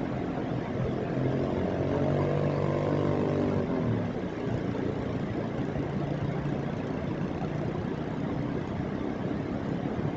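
Steady rushing noise of floodwater coursing down a volcanic creek bed, with a vehicle engine droning over it for the first four seconds, its pitch bending slightly before it cuts off.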